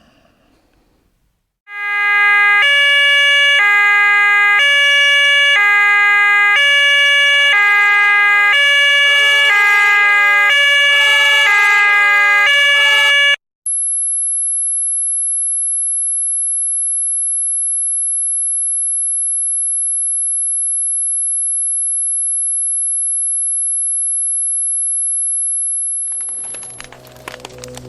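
A two-tone hi-lo siren alternating between two notes about twice a second, cutting off about 13 seconds in. It is followed by a single steady, very high-pitched tone that holds unchanged and fades out near the end.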